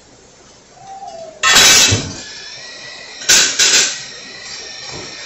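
Kitchenware clattering and clinking. There is a loud clatter about a second and a half in, then two quick ones a little past three seconds.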